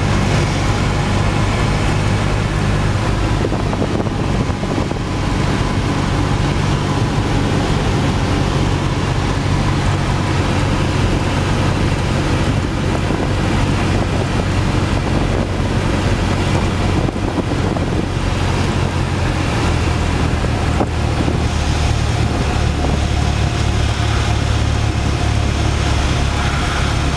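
Cessna 172's piston engine and propeller droning steadily, with wind noise over it. About twenty seconds in, the drone's tone shifts lower.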